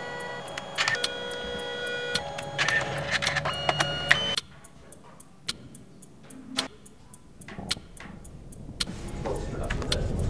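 Canon Selphy CP1300 compact photo printer running its motors while printing: a whirring whine of steady tones that shift pitch in steps, cutting off suddenly about four seconds in. After that it is quieter, with scattered light clicks and taps.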